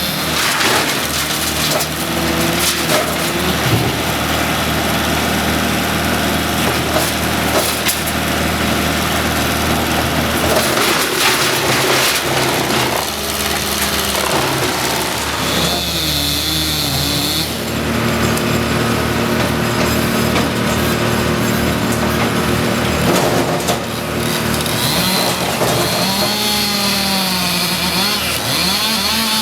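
Chainsaw running and cutting wood, its engine pitch rising and falling through the cuts, most clearly near the end. A steady high tone sounds for about two seconds midway.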